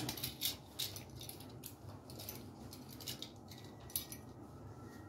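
Light clicks, rattles and rustles of small hardware being handled, such as an electrical receptacle and hand tools, with a sharp click at the start.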